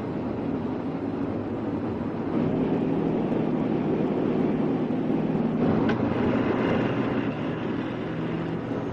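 Aircraft engines droning steadily, heard from inside the aircraft. The drone grows louder about two seconds in and eases near the end.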